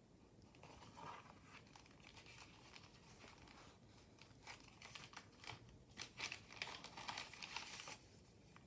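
Soft rustling and crinkling of paper pages in a handmade junk journal as they are flipped and handled, busier and louder for a few seconds near the end.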